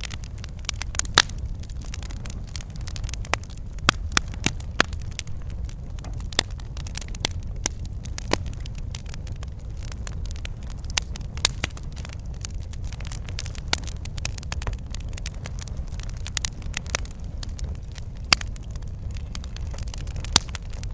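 Wood fire burning in a fireplace: irregular sharp crackles and pops over a steady low rumble of the flames.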